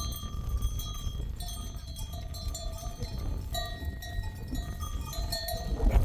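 Bells on a flock of sheep clanking irregularly at several different pitches as the animals move, over a low rumble.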